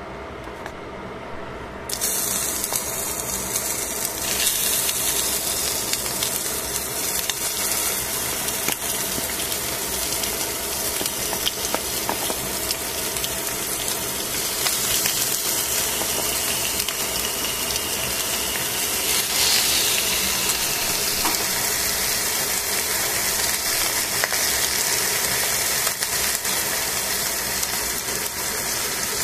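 Raw chicken pieces sizzling in a hot stainless steel pan; the sizzle starts suddenly about two seconds in and then holds steady.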